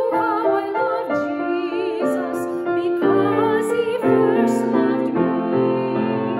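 A woman singing with vibrato, accompanied by piano.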